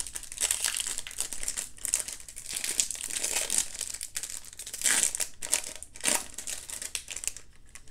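Foil wrapper of a 2020 Topps Chrome trading-card pack crinkling and tearing as it is pulled open by hand, in irregular crackles with louder ones about five and six seconds in.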